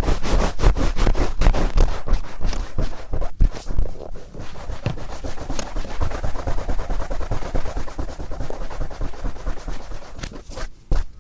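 Cotton swab rubbed and twisted firmly in an ear, making close, scratchy scraping. It starts as a quick run of separate strokes, several a second, then becomes denser continuous rubbing.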